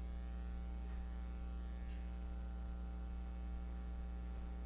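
Steady electrical mains hum with a buzzy series of higher overtones, unchanging throughout.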